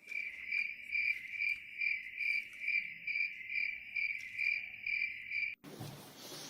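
Cricket chirping, an even shrill pulse about twice a second, which cuts off suddenly near the end. A brief noisy rush follows.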